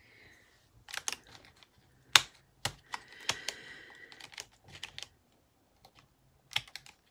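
Wooden coloured pencils clicking and clacking against a plastic pencil tray and each other as they are handled and pushed back into their slots: a scattered run of sharp clicks, the loudest just after two seconds in.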